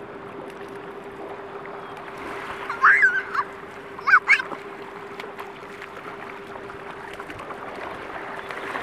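Small children's short, high-pitched squeals, one about three seconds in and a pair about a second later, over a steady wash of surf and shallow water. A faint steady hum runs underneath.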